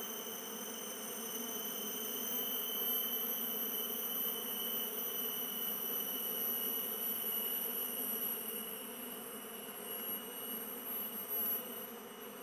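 Swarm of Asian honey bees (Apis cerana) buzzing in a steady hum, the colony stirred up as its nest in a hollow tree is opened. Steady high-pitched whining tones run above the hum.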